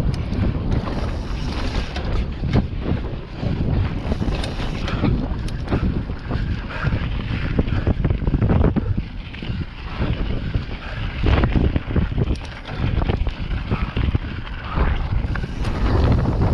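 Wind buffeting the microphone of an on-board camera on a mountain bike ridden over a dirt trail, with frequent knocks and rattles from the bike over bumps.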